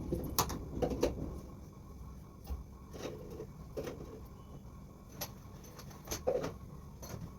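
Scattered knocks and clatter of household objects being handled and moved about, over a steady low rumble.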